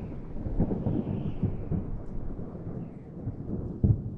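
Thunder rumbling and crackling low, slowly dying away, with one sharper clap near the end.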